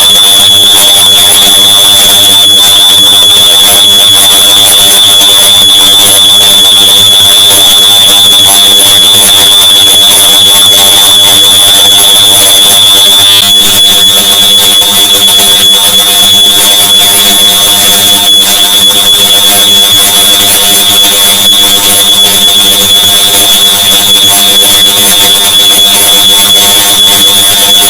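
A smoke alarm's beep copied and stacked on itself an enormous number of times, merged into one continuous, very loud, high-pitched tone over a dense bed of steady lower tones. About halfway through the tone thins slightly and the loudness starts to waver.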